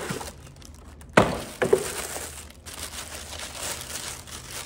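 Cardboard box and plastic packaging rustling as a boxed phone-style VR headset is opened and handled, with two sharp knocks about a second in, half a second apart.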